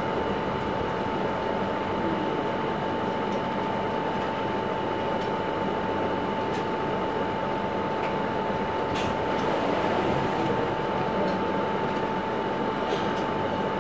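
Steady whirring of a motor-driven fan, an even hiss with a constant whine and a few faint ticks.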